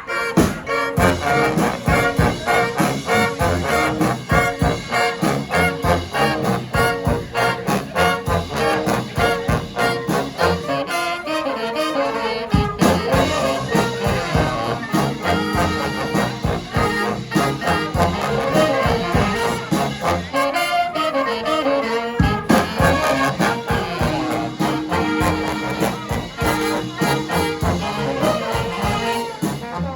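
Brass band playing live: trumpets and trombones in full ensemble over drums keeping a steady beat.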